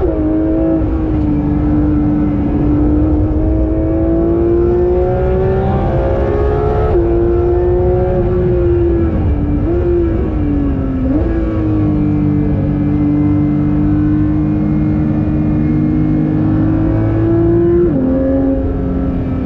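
Porsche's naturally aspirated 4.0-litre flat-six engine heard from inside the cabin under hard acceleration on track. The pitch climbs slowly and drops sharply on an upshift about seven seconds in, dips briefly around ten seconds, pulls steadily again and drops on another upshift near the end, over steady road noise.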